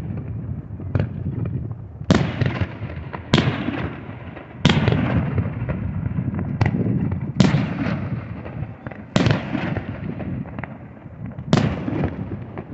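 Aerial firework shells bursting in a string of loud booms, about seven big ones every one to two seconds with a few smaller cracks between, each followed by a rolling echo.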